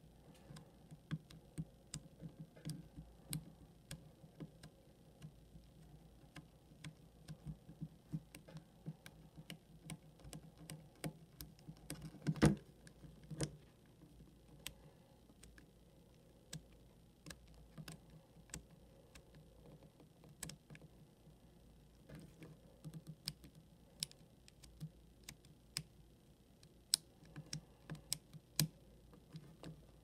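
Number wheels of a Schwinn four-wheel combination bike lock being turned by hand while it is decoded, giving faint, irregular clicks as the wheels step from number to number. One louder knock comes about twelve seconds in.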